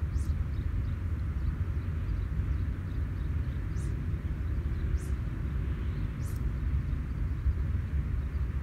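Wind buffeting the microphone in a steady low rumble, over a soft outdoor hiss. Four short high swishes come through, spaced unevenly a second or more apart.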